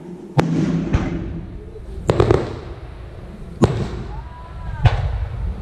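Aerial firework shells going off in a display: five sharp booms, roughly a second apart, over a low rumble.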